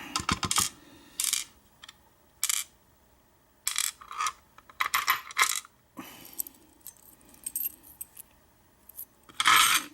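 Small lock pins from a Schlage deadbolt cylinder being dumped out and clinking onto a pinning tray: a string of separate light metallic clicks and rattles, the loudest cluster near the end.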